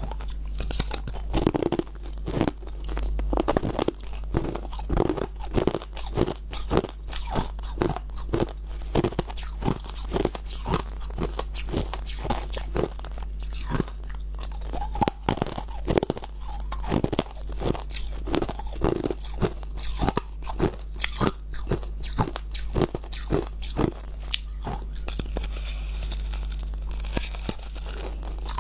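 Crunching ice: biting chunks off a block of frozen ice and chewing them, a dense run of crisp cracks and crackles close to a clip-on microphone, over a low steady hum.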